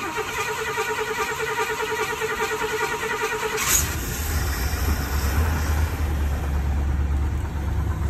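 1969 Ford F250's starter cranking the engine for about three and a half seconds. Then the engine catches and runs steadily on its newly replaced fuel pump and Edelbrock four-barrel carburetor.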